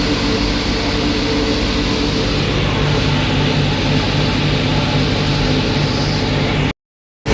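Tractor engine pulling a pull-type forage harvester that is chopping corn for silage: a loud, steady drone with the harvester's whirring noise over it. It cuts off abruptly near the end.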